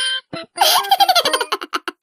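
A high-pitched, sped-up cartoon giggle: a fast run of short laughing syllables sliding down in pitch, cut off abruptly near the end.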